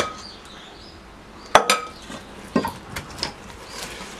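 Wooden spoon knocking against a stainless steel mixing bowl as whole almonds are stirred into thick nougat: a handful of sharp separate clinks, the loudest a close pair about one and a half seconds in.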